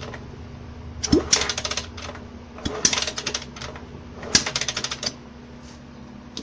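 Motorcycle kick-starter kicked three times, turning over a single-cylinder pushrod engine with its spark plug out and a thumb held over the plug hole. Each kick brings a short burst of rapid sputtering clicks as the compression pressure forces its way past the thumb, the sign of good compression.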